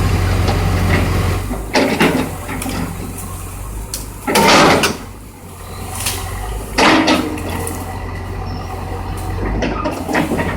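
Excavator's diesel engine running steadily while it tears into a burnt-out house, with loud crashes and cracks of breaking debris: one about two seconds in, the loudest a little before the halfway point, and another about two-thirds through.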